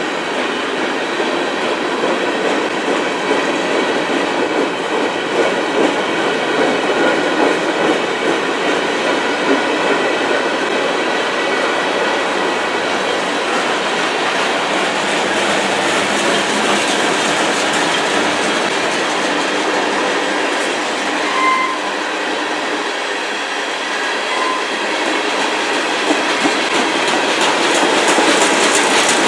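CN freight train's covered hopper and tank cars rolling past: a steady rumble and clatter of steel wheels on rail, with faint thin wheel squeals. The wheel clicks over the rail joints grow sharper near the end.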